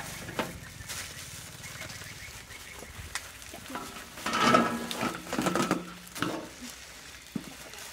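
Crinkling of a plastic instant-noodle packet and dry noodles being broken and dropped into a stainless-steel bowl. A short pitched, voice-like sound is the loudest part, from about four to six seconds in.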